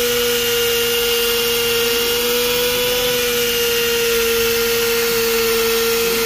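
Small die grinder fitted with an abrasive disc, running in a steady high whine as it is held against the engine block, cleaning up the metal face where the new water pump will seat.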